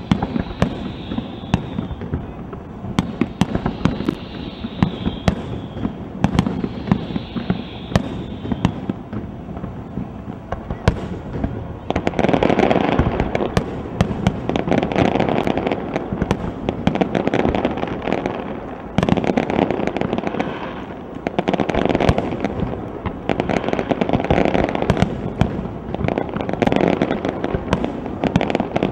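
Aerial firework shells bursting in a rapid series of sharp bangs, with three faint high tones sliding downward during the first few seconds. About twelve seconds in, the bangs thicken into a dense, louder crackle that swells and eases in waves.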